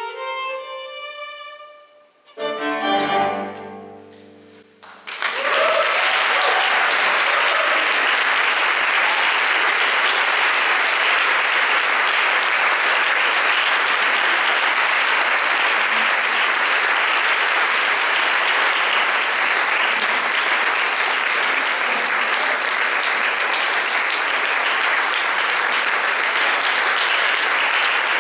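A violin, cello and piano trio finishes a classical piece with a few bowed violin notes and a final held chord, then about five seconds in the audience breaks into long, steady applause.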